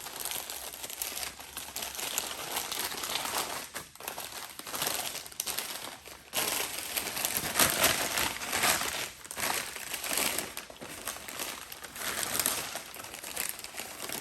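Newspaper wrapping being crumpled and pulled away from a camera by hand, a continuous rough crinkling that pauses briefly about six seconds in.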